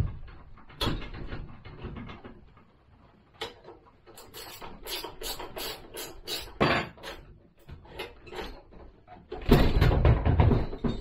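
Metal clicks, knocks and clatter of hand tools and parts being worked on a scooter's front wheel and brake, with a run of quick clicks about three a second midway and a louder, longer rattle near the end.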